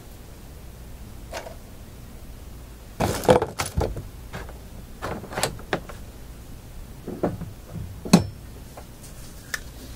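Small tools and objects being picked up, moved and set down on a workbench: a burst of clattering knocks about three seconds in, then scattered sharp clicks and knocks, with one louder knock later on.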